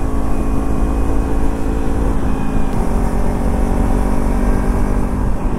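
Kawasaki Ninja 300's parallel-twin engine running steadily while riding, with heavy wind rumble on the microphone.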